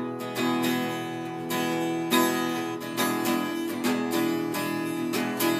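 Acoustic guitar strummed in steady chords, with no singing.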